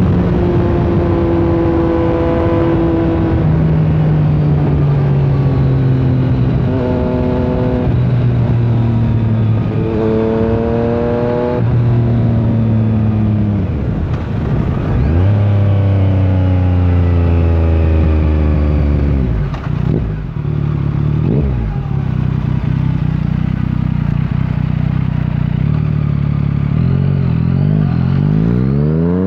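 Yamaha MT-09's three-cylinder engine heard while riding. The engine note rises under throttle, steps in pitch at gear changes and falls back off-throttle, dips briefly twice past the middle, then climbs in a sharp rising rev near the end.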